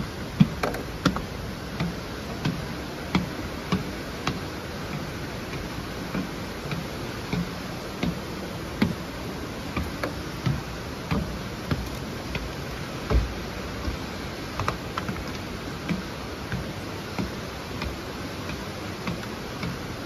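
Footsteps on wooden stairs and plank decking, a regular knock about every two-thirds of a second over a steady hiss.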